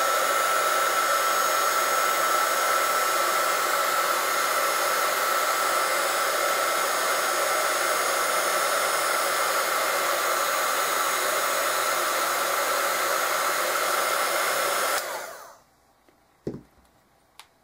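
Craft heat embossing gun blowing steadily with a high whine as it melts embossing powder on a small metal piece; it is switched off about fifteen seconds in and winds down quickly. Two small clicks follow near the end.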